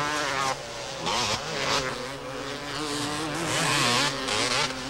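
Two-stroke motocross motorcycle engine revving hard, its pitch rising and falling quickly as the rider works the throttle over the track, with a sudden drop in level about half a second in.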